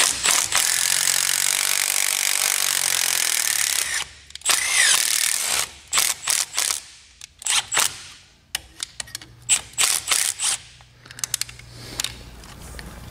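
A cordless 3/8-inch stubby impact gun runs continuously for about four seconds on a fastener. It is followed by scattered metallic clinks and taps of tools and exhaust parts being handled.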